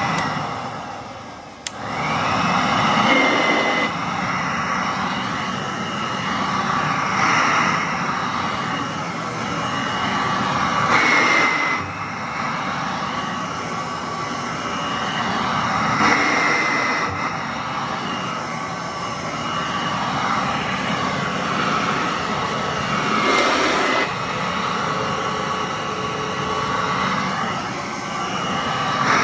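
Motor of a 1938 Singer R4D vacuum cleaner running with a steady whine. Its loudness and pitch swell and ease every few seconds, as happens when a vacuum is pushed back and forth. Near the start the sound dips, then a click comes and the motor runs back up to speed.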